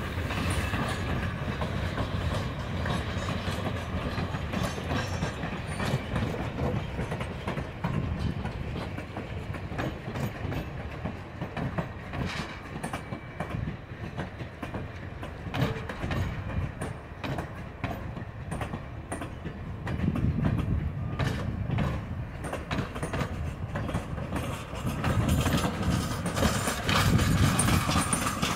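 Railroad cars rolling past at close range: a steady rumble of wheels on rail with repeated clicks over the joints. It gets louder near the end.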